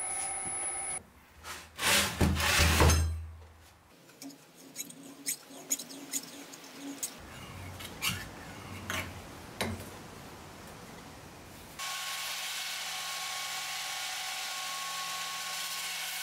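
An electric motor hums steadily, then gives way to a short loud burst of power-tool noise. Next comes a run of sharp scrapes and clicks as a knife blade is drawn again and again through a carbide sharpener held in a vise. About three-quarters of the way through, a belt grinder starts running with a steady hum and whine.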